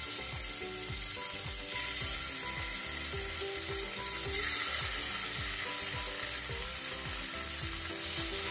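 Marinated chicken pieces sizzling steadily in hot oil in a non-stick pan as they are laid in one by one, with light clicks of the steel tongs against the pan.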